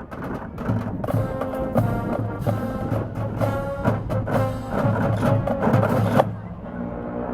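Marching band playing, brass chords over drums with regular sharp accents. The loud playing cuts off about six seconds in, leaving a softer, lower passage.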